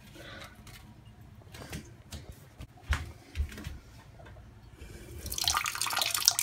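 Faint rustling and a single knock, then about five seconds in a thin stream of liquid starts splashing into the water of a toilet bowl, growing louder.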